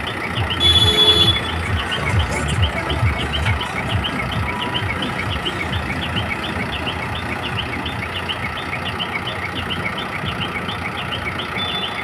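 ACE AX-124 backhoe loader's diesel engine running at idle with a low pulsing note, heaviest in the first few seconds. A rapid high chirping repeats about four times a second over it, and a brief loud high tone sounds about a second in.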